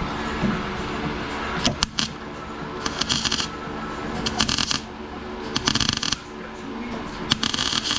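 MIG welder laying short tack welds on rusty mower-deck steel: about four crackling bursts of half a second or so, a second or two apart, after a few sharp clicks, over a steady low hum. The rusty metal makes the arc pop and spit.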